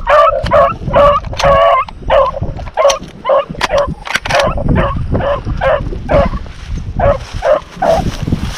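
Rabbit hound giving tongue in quick repeated barks, two or three a second, as it runs a rabbit's track after striking the scent. The barks thin out near the end.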